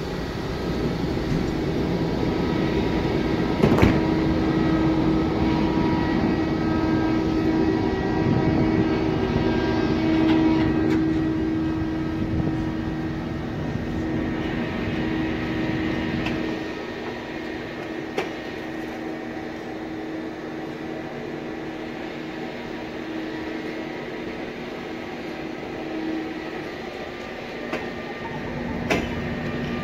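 EP20 electric locomotive and its double-deck train running with a steady electrical hum and whine over a low rumble. The sound drops to a quieter, thinner hum about sixteen seconds in, with a few short knocks.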